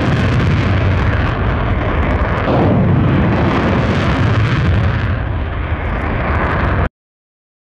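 Fighter jet engine on afterburner during its takeoff roll: a loud, steady, rumbling roar that cuts off abruptly about seven seconds in.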